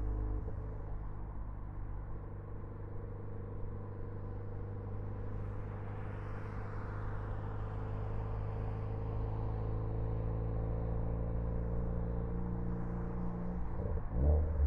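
Ford Focus ST engine and exhaust running at a steady speed, with a louder burst near the end.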